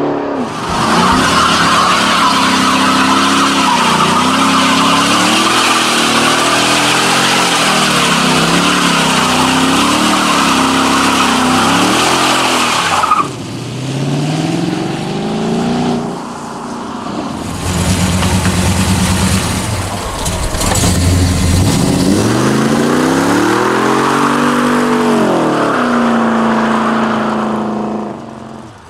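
A muscle car's V8 doing a burnout, held at high revs with the spinning rear tyres hissing and squealing. The tyre noise cuts off suddenly about thirteen seconds in. Then the engine revs up and down several times and settles into a steady note near the end.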